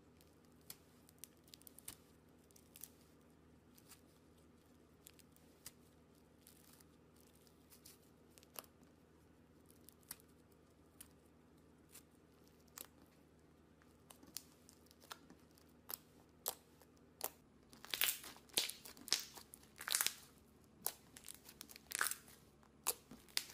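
Thick blue slime being stretched, torn apart and pressed by hand: sticky crackles and small pops, sparse at first, then coming thick and louder over the last few seconds.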